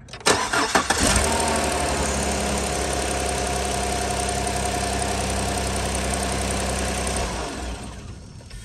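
A GM pickup truck's engine cranks and starts, flares briefly, then idles steadily for about six seconds and is switched off near the end. It is run only to let the transmission pump fluid out through the disconnected cooler line.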